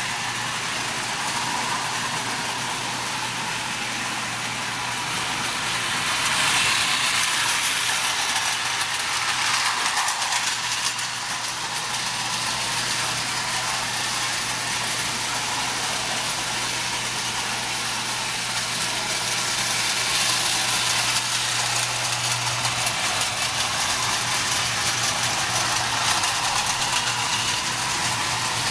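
Marx 6-inch tinplate toy trains running on metal track loops: a steady clatter of wheels on the rails over a constant electric hum, growing louder twice as a train passes closer.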